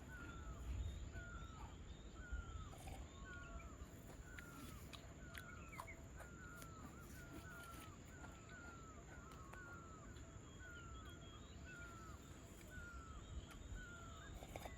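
A wild animal calling over and over: short, falling chirp-like notes, faint, repeated about twice a second, with a steady high-pitched whine behind them.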